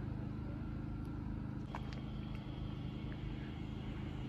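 Electric multiple-unit train moving slowly along the platform: a steady low hum with a faint higher whine, and a few light clicks about a second and a half in.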